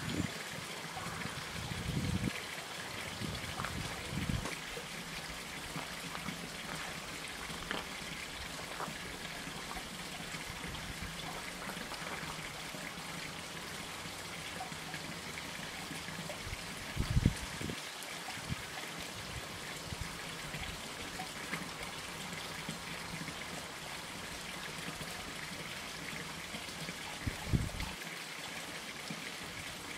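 Steady rushing outdoor background noise with a few short low thumps, the loudest about seventeen seconds in.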